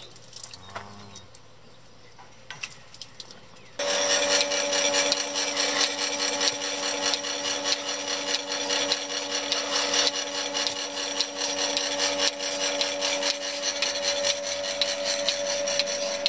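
Portable bucket milking machine running: its vacuum pump motor starts suddenly about four seconds in and holds a steady hum with a fast rasping rattle while the teat cups are put on the cow. Before that only a few faint clicks and knocks.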